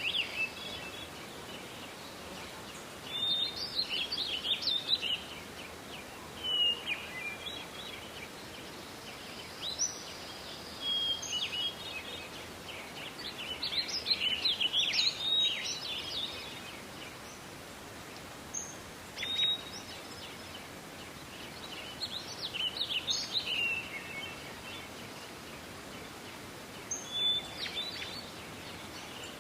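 Songbirds singing in a forest: short, twittering song phrases recur every few seconds over a steady background hiss.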